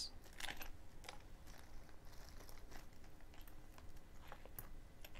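Faint, irregular small clicks and light rustling of tangled costume-jewelry necklace chains being worked apart by hand.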